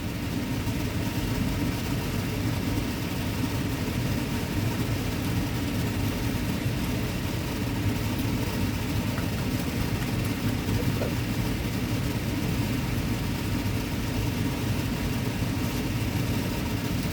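Kitchen range-hood exhaust fan running with a steady low hum.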